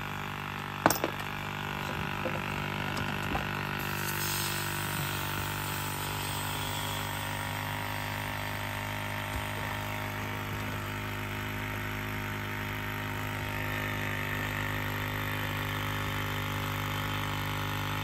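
Ford Super Duty's electric vacuum pump running steadily as it pumps the freshly repaired vacuum system back down to full vacuum, with one sharp click about a second in.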